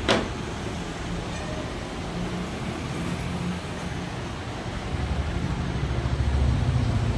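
A single sharp click right at the start, then a steady low rumble and hiss that grows louder over the last couple of seconds.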